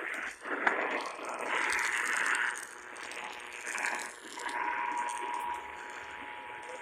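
Emergency Alert System broadcast: screechy digital SAME header data bursts, then from about four and a half seconds in a steady two-note attention tone, heard through a radio receiver with a noisy signal.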